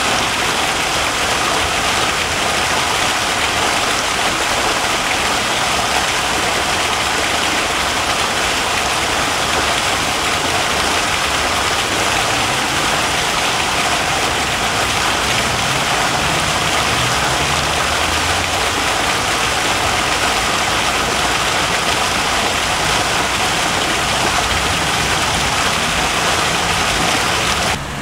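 Fountain jets splashing into a stone basin, a steady loud rush of falling water. It drops abruptly to a quieter wash just before the end.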